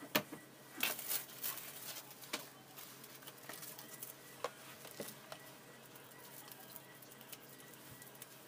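Kitchen handling sounds while rolling maki: light clicks and taps from a bamboo sushi rolling mat being set down, brief rustling as a nori sheet is laid on it, and soft taps of a plastic rice paddle. The sharpest click comes right at the start, with a cluster of rustling about a second in and scattered single taps after.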